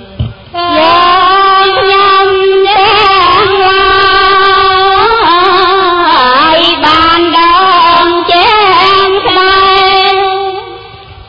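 A single high voice chanting a Buddhist sutta in a sung melody, with long held notes that waver and glide between pitches. It starts about half a second in and fades out near the end.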